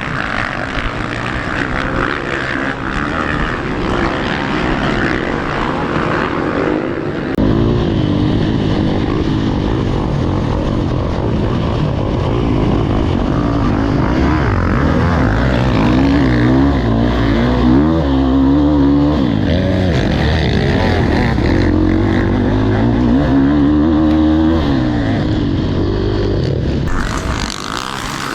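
Motocross bike engine running under load, its pitch rising and falling repeatedly as the throttle opens and closes. It gets louder about seven seconds in and drops back near the end.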